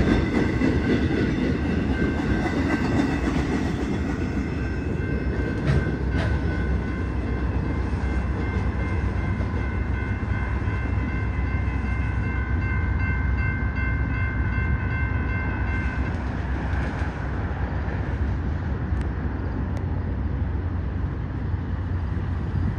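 Freight train's loaded flatcars rolling past with a steady low rumble and wheel clatter. A grade-crossing signal bell rings steadily over it and stops abruptly about sixteen seconds in, as the train clears the crossing.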